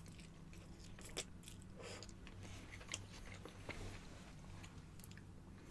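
A person chewing a mouthful of pasta close to the microphone: faint, wet mouth clicks and smacks at irregular intervals, over a low steady hum.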